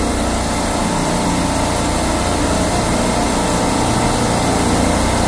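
Steady machinery drone of a running supermarket refrigeration compressor rack: a constant low hum under an even hiss.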